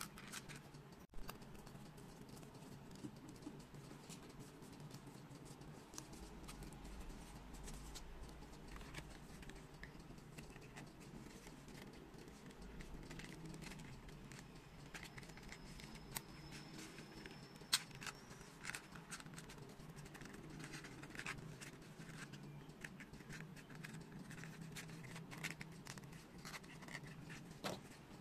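Faint handling of foam-board 3D puzzle pieces: scattered small clicks and scratches as the printed foam walls are pressed and slotted together, with one sharper click a little past halfway.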